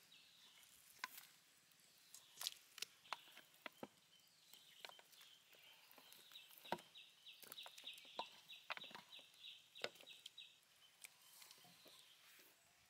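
Faint outdoor background of chickens clucking now and then, with a fast, high trill in the middle.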